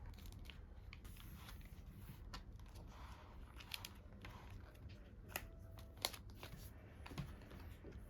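Faint handling of small items such as photo prints and plastic sleeves or packaging: scattered light taps and clicks with a little rustling, and a few sharper clicks in the second half.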